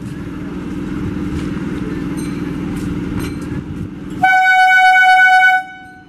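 EMU local train running with a low rumble, then one long blast of its horn about four seconds in: a single steady pitch lasting about a second and a half, the loudest sound here, cutting off sharply.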